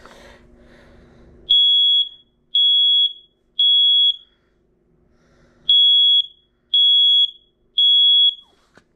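Family Gard smoke alarm sounding on its test button: a loud, high-pitched piezo horn beeping in two sets of three. This is the temporal-three evacuation pattern.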